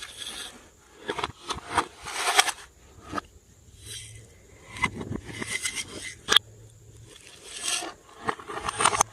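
Slime being mixed by hand: irregular squishing and crackling bursts with sharp little pops and clicks, one loud pop about six seconds in.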